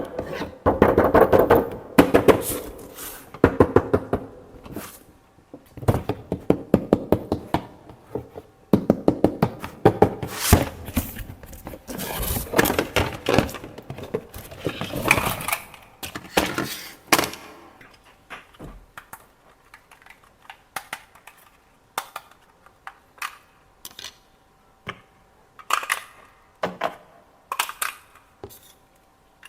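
Rapid clattering clicks and knocks of hard plastic toy parts being handled. They come thick and fast for about the first 17 seconds, then thin out to scattered single clicks.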